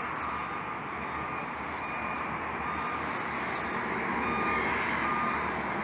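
Steady hiss of distant town background noise, likely traffic, with a few faint short beeps now and then.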